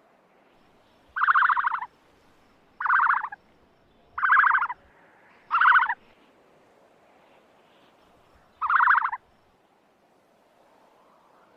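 Ostrich calling: five short buzzy calls, each about half a second long, the last coming after a pause of nearly three seconds.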